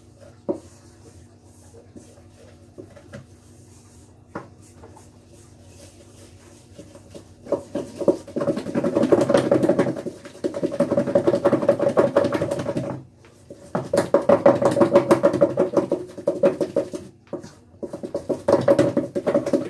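Wooden spoon beating butter and icing sugar into frosting in a stainless steel mixing bowl: a fast rattle of strokes against the ringing metal bowl. It comes in spells of a few seconds with brief pauses, starting about seven seconds in after a few light clicks.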